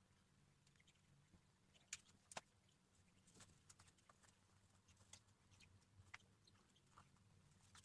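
Near silence: a low steady hum with a few faint, scattered clicks and taps, typical of cardboard craft materials being handled.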